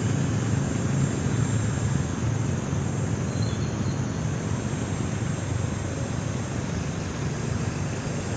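Steady low drone of a homemade foam RC plane in flight, driven by a 1400kv electric motor and propeller.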